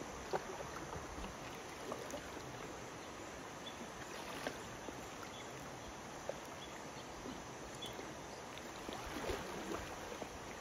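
Shallow river water lapping and trickling steadily, with a few small splashes as an elephant wades through it.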